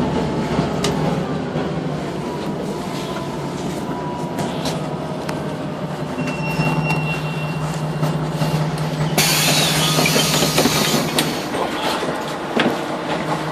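Jelcz 120M/3 city bus heard from inside the passenger cabin: the engine drones steadily, a thin high squeal sounds for about three seconds, then about nine seconds in a sudden hiss of released compressed air from the bus's pneumatic system lasts about two seconds.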